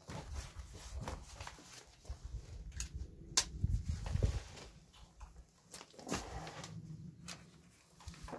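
Handling noises as an angle grinder with a flap disc is picked up and moved: scattered knocks, clicks and low thumps, with the grinder not running.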